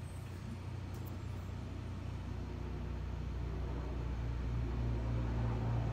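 Steady low rumble and hum of background ambience, growing slightly louder toward the end.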